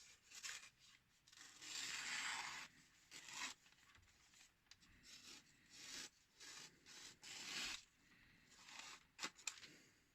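Freshly sharpened kanna (Japanese hand plane) blade slicing through a sheet of paper in a series of short papery cuts, the longest and loudest about two seconds in, with a couple of light clicks near the end; a test of the edge's sharpness.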